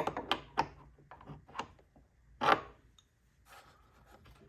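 Tool turning a double-nutted hanger bolt into a wooden chair leg under tension: a run of short scraping clicks of metal against metal and wood, with one louder scrape about two and a half seconds in.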